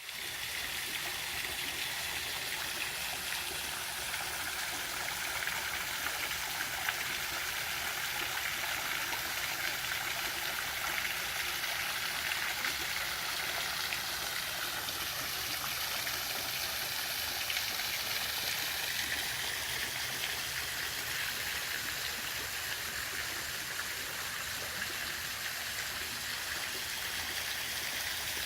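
Pool waterfall feature pouring steadily into the pool, an even splashing of water.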